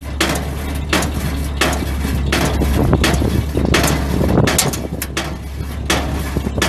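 1973 GMC 6500's eight-cylinder gas engine running with a steady low hum, under a sharp clattering knock that repeats about every two-thirds of a second.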